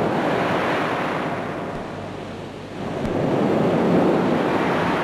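Ocean surf breaking and washing onto a sandy beach in two swells, the second louder.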